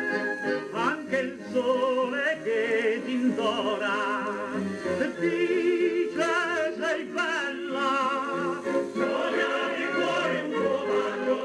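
Record playback of a vintage Italian popular song on a Garrard Model 88 Mk II turntable: an orchestral passage with a wavering vibrato melody and no words sung.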